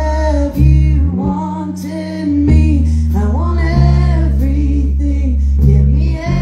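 Live band music: a woman singing a song over electric guitar and held low bass notes.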